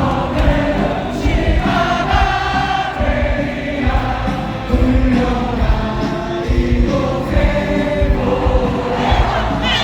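Many voices singing together in chorus over a steady low drum beat, like a crowd chanting a song.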